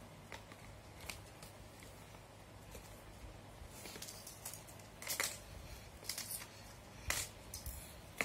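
Handling noises from a paper-covered cardboard box as small items (a medicine bottle, tablet strips) are set into its compartments: scattered light rustles and taps, with two sharper clicks about five and seven seconds in.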